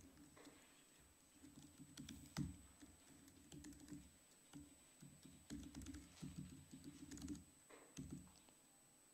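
Faint, irregular keystrokes on a laptop keyboard as code is typed, with short pauses between runs of keys.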